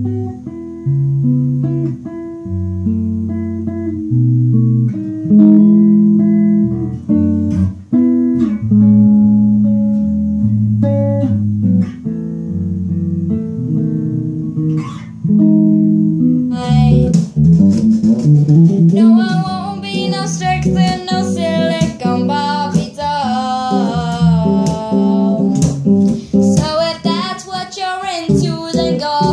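RMI Expression five-string electric bass, tuned E to C, played solo fingerstyle as a melodic line of separate notes. About seventeen seconds in, the sound cuts to a brighter, louder take where the bass accompanies a singer.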